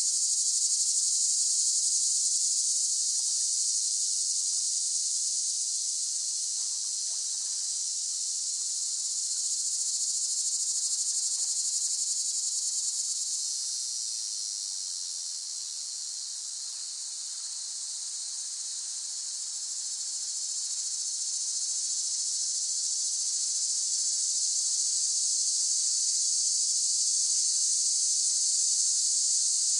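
Cicadas droning in a continuous, high-pitched shrill buzz that eases off a little midway and swells back up.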